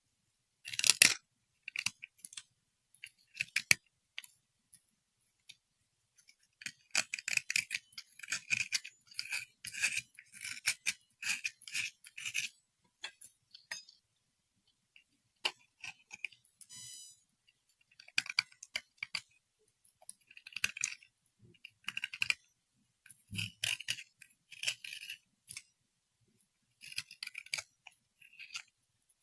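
Bursts of short, scratchy brushing or scrubbing strokes with sharp clicks, in groups separated by pauses, and one brief squeak about halfway through.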